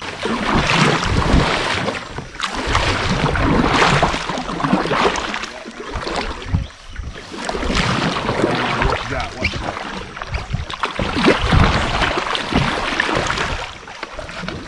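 Water splashing and rushing around a kayak drifting on a river, loud and uneven, swelling and dipping every second or two.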